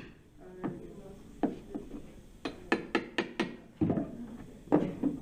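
A hammer tapping a thin steel bar wedged under a wooden board to pry it off the table, a dozen or so sharp knocks at uneven intervals, loudest near the end. The board is held down only by plastic composite nails, which pop out or snap as it comes up.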